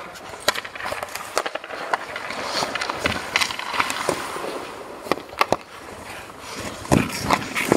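Ice hockey skates scraping and carving the ice, with sharp clicks and cracks of sticks and pucks striking, the loudest cluster about seven seconds in.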